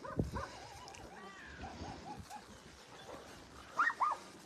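Dogs whining softly with a string of short whimpering notes, then two sharper yips near the end.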